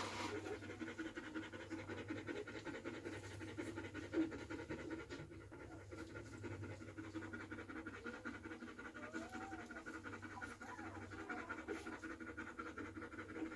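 A Belgian Malinois bitch panting quickly and steadily, a sign that she is still in labour and tired, with another puppy still to come.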